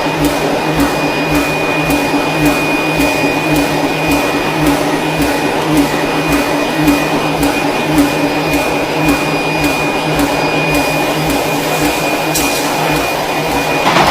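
Forging-shop machinery running steadily: a constant blower-like rush with a steady hum, and a light regular ticking two or three times a second that stops about eleven seconds in.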